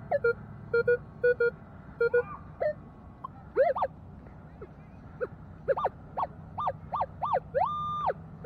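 Minelab X-Terra Pro metal detector giving target tones as its coil sweeps the ground. Short beeps at a low and a higher pitch come first, then several tones that swoop up and down in pitch. Near the end comes a long steady higher tone, the detector's response to a big target.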